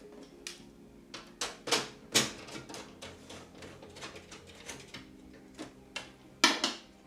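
Irregular clicks and knocks of hardware being handled inside a desktop PC case, with the loudest knocks about two seconds in and near the end.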